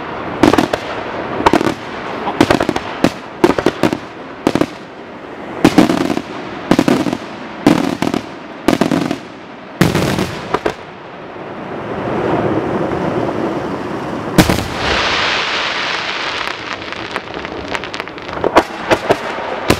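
Bruscella Fireworks aerial shells bursting in quick succession, with sharp bangs several a second through about the first ten seconds. After a loud bang midway, a steady hiss fills a few seconds before a fresh run of quick bangs near the end.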